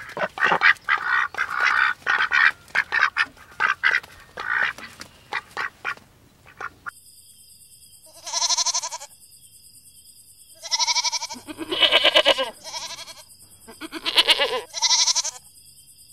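Ducks quacking rapidly and repeatedly for about six seconds. Then, after a cut, goats bleat about five times in wavering calls over a steady high hiss.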